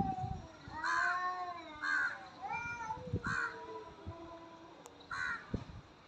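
Cats in a fight standoff: a long, low, wavering yowl, cut across by four short harsh cries that sound much like a crow cawing.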